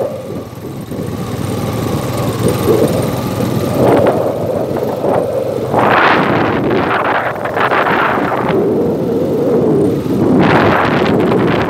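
Quad bike engine running as it rides over sand, with wind buffeting the microphone in surges about halfway through and again near the end.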